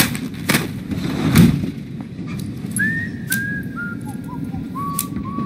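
Steady low rumble of a passenger train running. From about halfway, a short whistled tune of clipped notes steps down in pitch.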